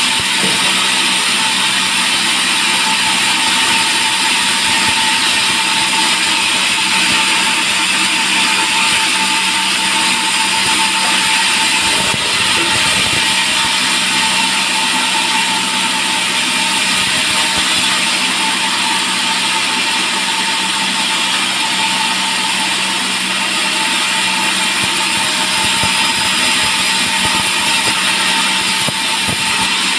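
Band sawmill cutting a long teak log: the blade running steadily through the wood over the machine's motor, with a constant whine.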